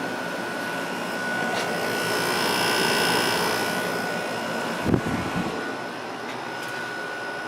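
Whirlpool 5,000 BTU window air conditioner running on cool: a steady hum with a constant whine under its blower's rushing air. A low thump comes about five seconds in, and after it the air noise settles a little quieter.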